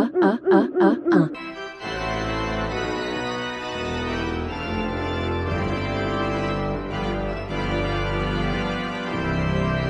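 A short warbling sound repeated quickly, about three times a second, cuts off after a second or so. Then sustained organ-like music with many held notes fills the rest.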